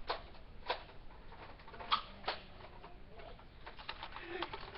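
Faint, irregular clicks and taps, a dozen or so, unevenly spaced, with a quick cluster near the end.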